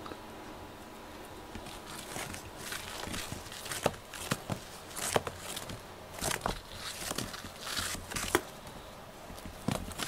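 Scattered light rustles, scrapes and taps of a sisal-rope fish toy on a string being jiggled and dragged across a wooden floor.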